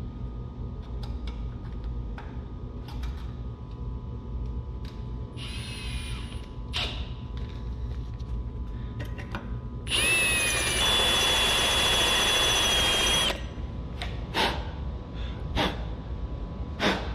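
Power drill spinning a bit against the hardened-steel retaining pin of a BMW N54 turbo's wastegate, with the bit failing to cut. A short run comes about five seconds in, then a louder run of about three seconds from around ten seconds in with a high steady whine, with scattered clicks and knocks in between.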